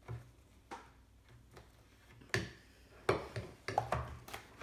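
About half a dozen sharp clicks and taps as the lid of a baking powder can is worked loose and pried off, sparse at first and coming closer together in the last two seconds.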